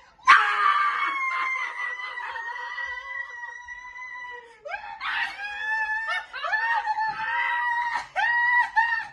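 Excited scream of joy: one long high-pitched scream held for about four seconds, then a run of shorter high squeals and cries.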